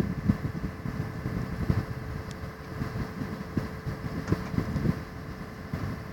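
Deutz-Fahr Topliner 4075 combine harvester running with its Geringhoff header: a steady machine hum with a constant whine, broken by irregular low thumps of wind on the microphone.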